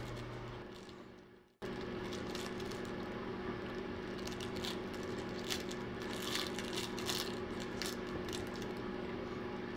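A steady low hum with faint soft clicks and rustles scattered through it; the sound fades out and cuts back in abruptly about a second and a half in.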